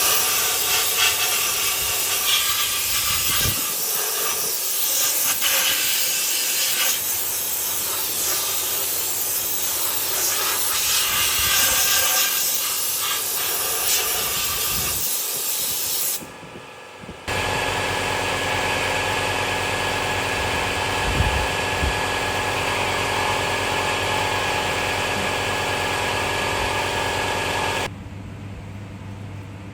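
A pressurised spray hissing loudly in two long bursts, blasting metal shrapnel out of a differential housing; the second burst has a steady hum under it and stops a couple of seconds before the end.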